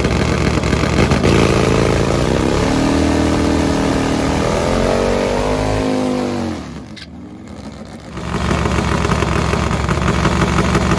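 Nitro-burning Harley drag motorcycle engine during a burnout, its pitch climbing as it revs. About six seconds in it falls away and dips quieter for a second or so, then the loud engine sound picks up again.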